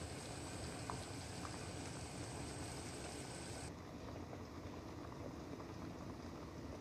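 Pot of pork stewing in black sweet rice vinegar, simmering on a gas burner with a steady bubbling hiss. A little over halfway through, the higher hiss drops away abruptly.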